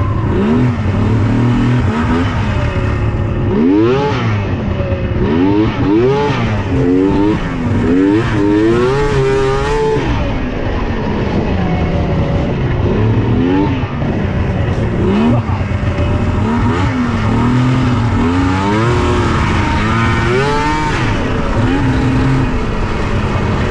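Yamaha SX700R snowmobile's two-stroke triple engine revving up and down in repeated short throttle blips, the pitch climbing and dropping again several times in a row, with steadier running between two runs of blips.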